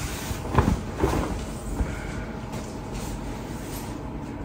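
Large quilted comforter being unfolded and shaken out, its fabric rustling and flapping twice about a second in, over a steady low background hum.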